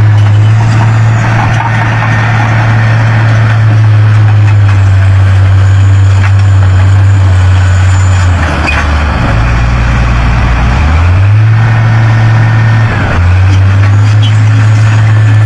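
Heavy diesel engine of earthmoving machinery running loudly with a steady low drone. Its pitch drops lower a little past halfway for about three seconds, then steps back up.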